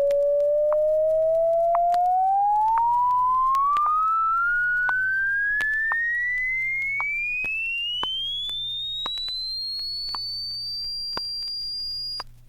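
Audio-frequency test sweep from a stereo demonstration record: a single pure tone gliding upward from about 500 to 5,000 cycles, levelling off near the top and cutting off shortly before the end. Faint scattered record-surface clicks run under it.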